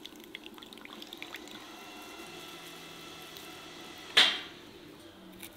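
Juice trickling and dripping into a glass bowl as grated vegetable is squeezed by hand. About four seconds in there is one sudden, louder wet sound as the squeezed handful is dropped into an enamel bowl.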